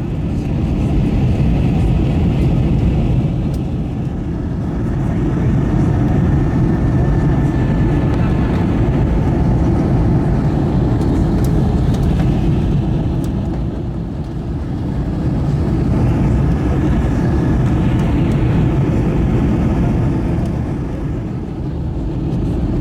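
Airbus A321 airliner heard from inside the cabin in flight: a steady, deep rumble of engines and airflow, with loudness swelling and easing in slow waves every few seconds and a faint high whine riding on top.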